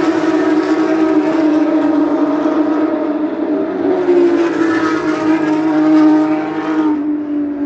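A pack of Porsche 911 GT3 Cup race cars accelerating hard away from the race start, their flat-six engines at high revs with many engine notes overlapping. The sound swells to a peak about six seconds in as the last cars go by, then thins out near the end.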